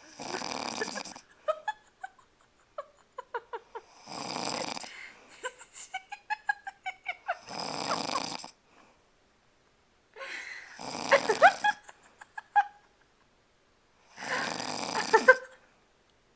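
A sleeping woman snoring: five rough, rattling snores about every three and a half seconds, with light clicking, squeaky sounds on the breath between them.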